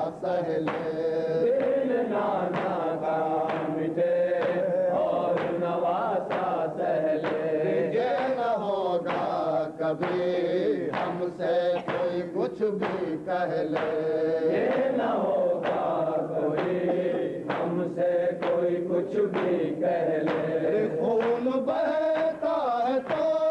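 A group of men chanting a noha in unison, with regular sharp slaps of hands on chests (matam) keeping the beat.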